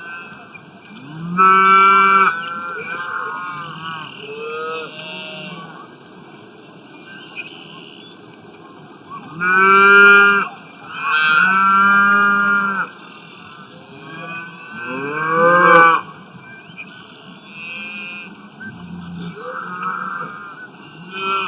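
Cows mooing: a string of long, pitched moos, some overlapping, with the loudest calls about two, ten, twelve and sixteen seconds in and fainter ones between.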